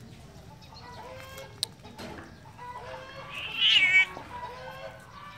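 A domestic cat yowls once, loud and wavering, about three and a half seconds in, while a dog mouths it in play. Short animal calls sound in the background.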